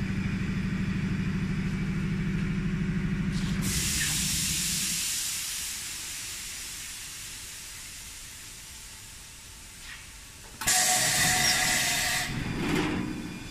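Four-cavity PET bottle blow-moulding machine running, its compressed air hissing. A steady low hum gives way a few seconds in to a hiss of air that slowly fades, then about ten and a half seconds in a sudden loud blast of air hiss lasts a second or so, with a shorter hiss just after.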